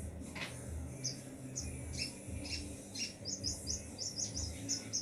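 Small bird chirping: a run of short, high chirps that come quicker and closer together in the second half.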